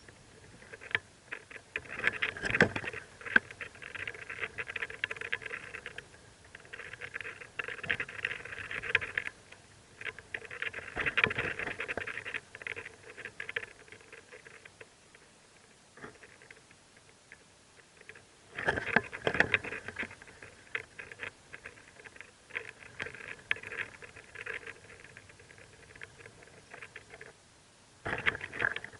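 Mockingbird nestlings begging in bouts, with scratchy chirping and rustling and clicking in the nest. There are five bursts with quieter stretches between them.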